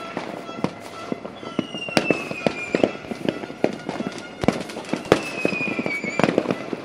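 A fireworks display with many bangs and crackles going off in quick, uneven succession. Two whistles fall slightly in pitch, one starting about a second and a half in and one about five seconds in.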